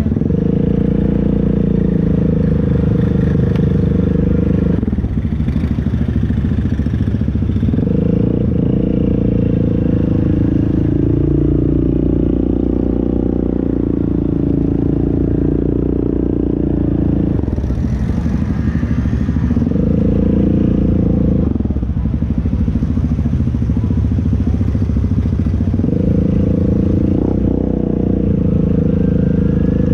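ATV engine running under throttle, held at steady revs for several seconds at a time and dropping back in between as the throttle is let off and opened again.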